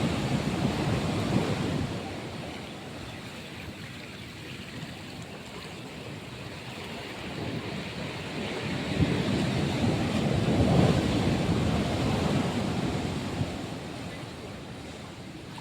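Ocean waves washing up a beach in two surges: the first fades away in the opening couple of seconds, and the second builds about eight seconds in, peaks and then recedes.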